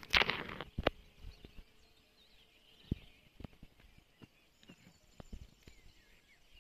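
A short rustle of grass and flower stems brushing close to the microphone just at the start, then scattered soft taps and faint bird chirping in the background.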